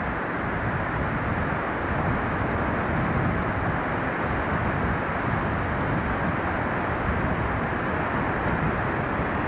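Steady rush of Baltic Sea surf breaking on a sandy beach, mixed with wind noise on the microphone, with no separate events standing out.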